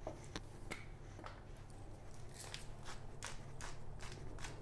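Faint, irregular light clicks and taps from kitchen handling, roughly two a second, over a low steady room hum.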